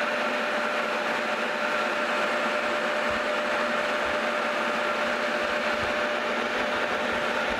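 Rivett metal lathe running at a steady speed while its tool turns down half-inch bar stock: an even machine hum and cutting hiss with a few faint steady whining tones.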